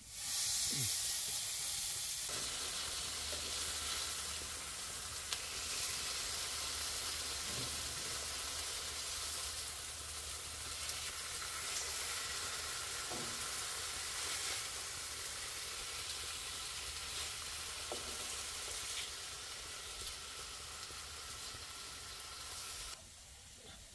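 Pork belly sizzling in a hot pan: a steady frying hiss with a few scattered pops, over a low steady hum.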